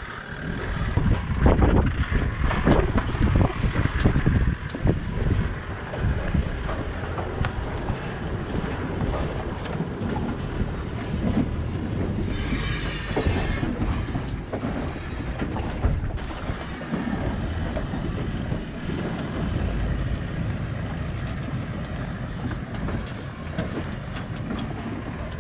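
A four-wheel-drive ute towing a heavy off-road caravan crawling past over a rocky, sandy track: engine running, tyres grinding over rock and sand, with knocks and rattles from the rig, most of them in the first few seconds.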